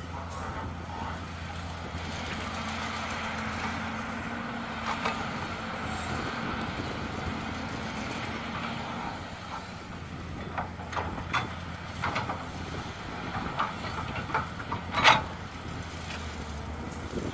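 Hydraulic excavator's diesel engine running steadily with a low hum, joined in the second half by a series of sharp metallic clanks and knocks, the loudest about fifteen seconds in.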